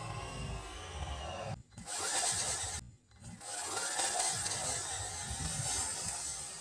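RC buggy driving through dry fallen leaves, the leaf litter rustling and scraping as its tyres throw it up. The sound cuts out sharply twice, about a second and a half and three seconds in.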